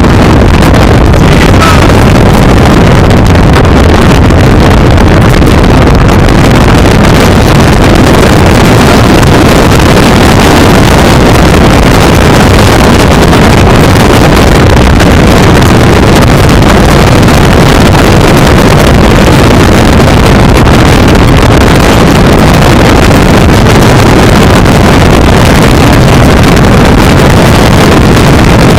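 Loud, steady wind noise buffeting the microphone, an unbroken rumbling roar heaviest in the low end.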